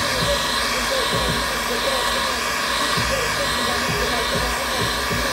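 Handheld electric heat gun running steadily, its fan blowing hot air to dry fresh paint.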